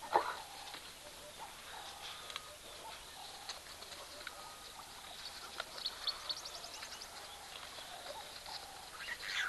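African wild dogs calling at a kill: one short sharp call just at the start, then faint, rapid high-pitched chirping around the middle.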